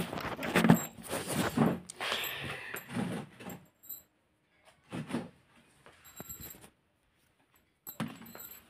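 Handling noise from a phone being moved about in the hand: irregular rustling, rubbing and light knocks, busiest in the first few seconds, then a few short scuffs with quiet gaps between them.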